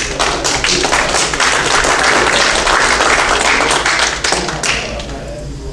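Congregation applauding. It starts suddenly and dies away about four and a half seconds in.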